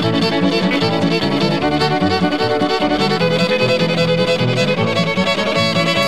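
Instrumental background music led by a fiddle playing a quick tune.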